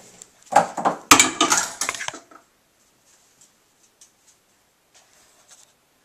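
A quick clatter of hard knocks and rattles lasting about two seconds, then a few faint scattered ticks.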